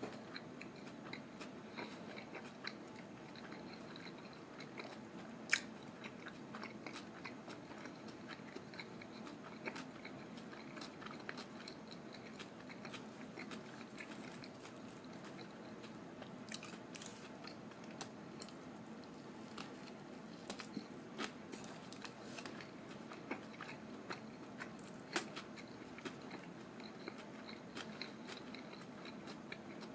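A person chewing and biting into a fish sandwich close to the microphone: continuous soft, moist mouth sounds with many small clicks, and a few sharper, louder crunchy bites.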